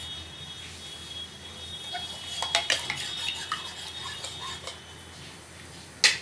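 Metal spoon clinking and scraping against a ceramic bowl while stirring egg and milk batter: a quick run of clinks for about three seconds from two seconds in. Near the end, one sharp, loud knock, the loudest sound here.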